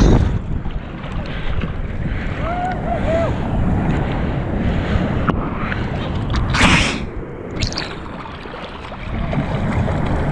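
Broken waves and chop splashing and sloshing over a GoPro held at water level by a paddling surfer, with wind buffeting the microphone. A sharp splash comes right at the start and another about six and a half seconds in.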